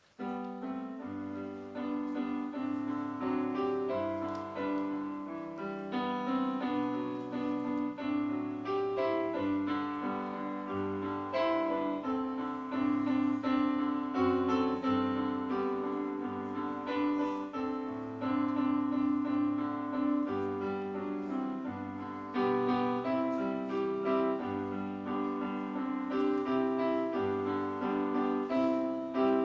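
Piano playing a slow piece of held chords over low bass notes that change every second or two.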